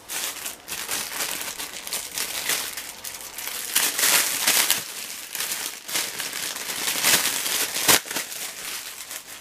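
Clear plastic packaging crinkling and crackling as it is handled and pulled apart to free an item, with dense crackles throughout. It is loudest about halfway through and again near the end.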